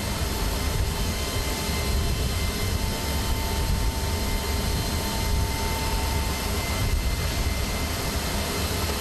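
Steady aircraft engine roar filling a transport plane's cargo hold: a deep rumble with a constant high whine. A further steady tone comes in about three seconds in and stops about three seconds later.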